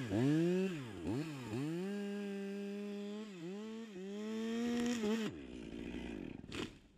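Top-handle chainsaw revved in three quick blips, then held near full throttle as it cuts through a tree trunk, the engine note dipping briefly under load. It cuts off a little over five seconds in, and a short rustle follows.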